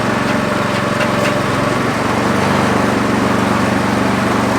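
Small engine running steadily, driving a sugarcane juice press; its pitch drops a little about two seconds in.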